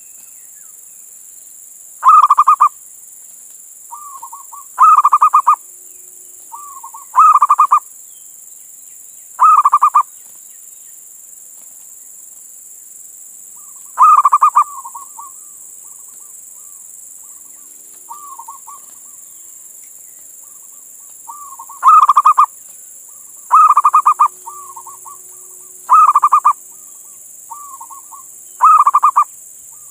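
Male zebra dove (perkutut) cooing: about nine loud, rapidly pulsed coos, each under a second long and spaced irregularly a few seconds apart, with softer short notes between them. This is its advertising call to a female.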